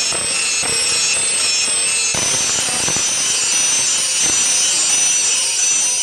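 Horror sound effect from a smartphone soundboard app: a steady, harsh grinding noise with thin high ringing tones over it, which brighten about two seconds in.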